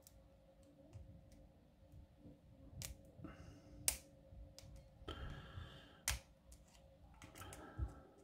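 Lock pick and tension wrench working inside an American Series 200 padlock: light scraping with a few sharp metallic clicks, the loudest about six seconds in.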